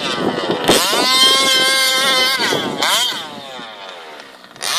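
Small 29cc two-stroke engine of a 1/5-scale HPI Baja 5B RC buggy at full throttle. It revs up sharply about a second in and holds a high, steady whine. From about three seconds in it falls away in pitch and loudness as the throttle comes off, then revs up again at the very end.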